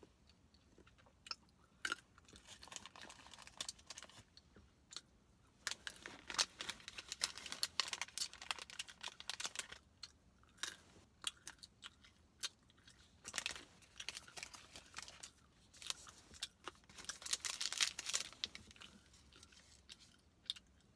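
Close-up chewing and crunching of a snack, with stretches of crinkling from a plastic snack wrapper being handled.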